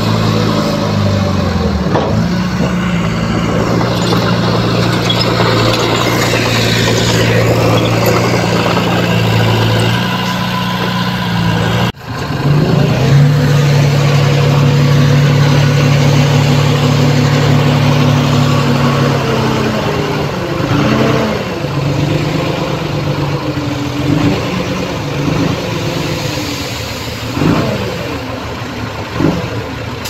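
Diesel engines of a small crawler bulldozer and a dump truck running. There is an abrupt break about twelve seconds in, then a steady drone, and in the last third the engines rev up and down.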